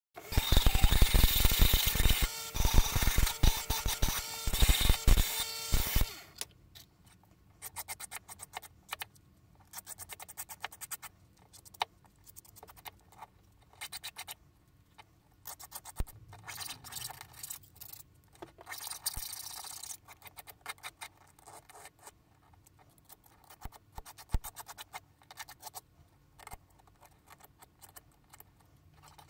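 Needle file rasping on the edge of a small metal hand cutout held against a wooden bench pin. It starts with about six seconds of loud, dense strokes, then continues in short bursts of strokes with quiet pauses between them.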